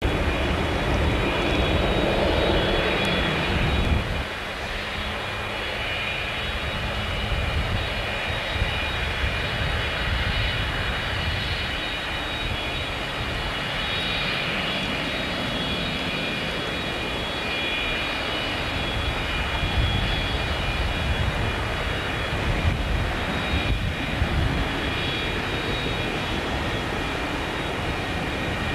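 Jet engines of an American Airlines DC-10-10 wide-body airliner (three General Electric CF6-6 turbofans) running at taxi power: a steady rumble with a high, even whine. The sound is louder at first and drops suddenly about four seconds in, then holds steady.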